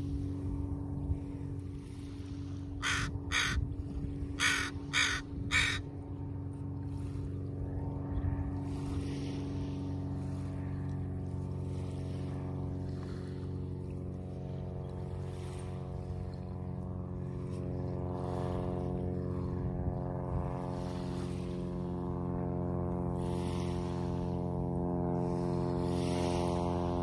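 Crows cawing, two caws about three seconds in and three more about a second later, over the steady low drone of a boat engine.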